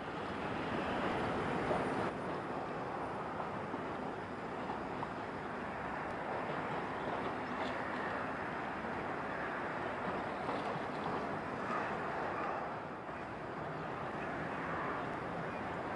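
Steady waterfront ambience: a continuous even rush of wind and water, with no distinct engine note.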